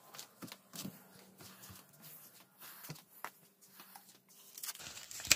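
Soft footsteps on a shop floor with rustling and handling noise from a handheld camera while walking, over a faint steady hum. A sharper click comes near the end.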